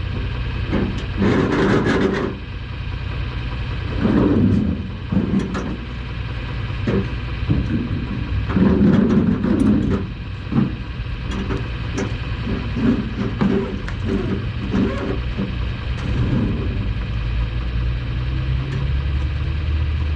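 Truck engine running with a steady low hum, with irregular thumps and rattles throughout.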